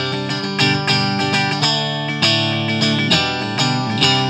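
Electric guitar, a Fender Stratocaster, played through a guitar amplifier: chords picked about twice a second and left to ring. It is heard through a Shure SM57 placed close to the speaker cabinet's grille.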